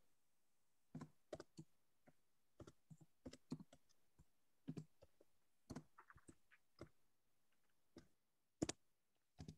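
Faint, scattered clicks of a computer keyboard being typed on, coming irregularly a few at a time.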